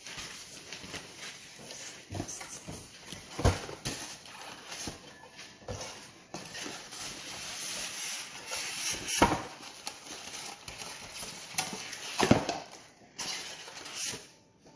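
Packaging being handled while an appliance is unboxed: steady rustling of plastic and cardboard, with irregular knocks and thumps as parts are lifted out and set down, the loudest about three and a half, nine and twelve seconds in.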